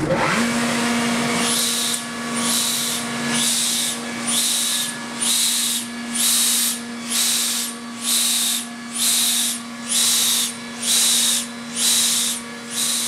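Gardner Denver EBA99A 15 hp rotary screw air compressor starting and running. A steady motor hum sets in at once, and from about a second and a half in a hiss of air swells and fades over it a little more than once a second.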